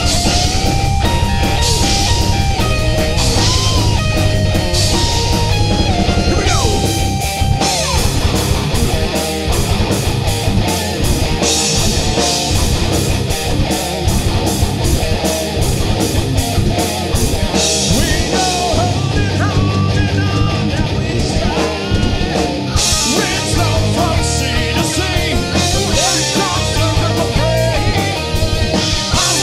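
Heavy metal band playing an instrumental passage: distorted electric guitars over fast, dense drumming. A held lead guitar line with pitch bends runs through the first several seconds.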